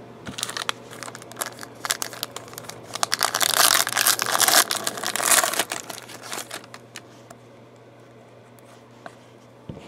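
Foil wrapper of a 2011-12 Panini Limited basketball card pack crinkling and tearing as it is ripped open by hand, loudest about three to five seconds in, then dying away to faint handling of the cards.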